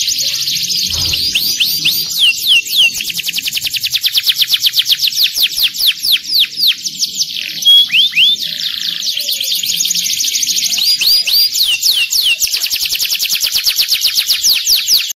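Domestic canary singing a long unbroken song of fast trills (rolls), rapid runs of repeated downward-sweeping notes. Here and there it breaks into a few slower, louder slurred whistles.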